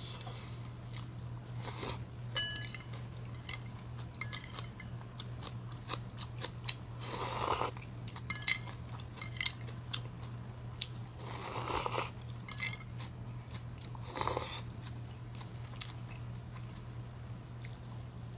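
Close-up eating sounds of someone eating instant ramen with chopsticks: wet chewing and small clicks, with three longer slurps of noodles spread through. A steady low hum runs underneath.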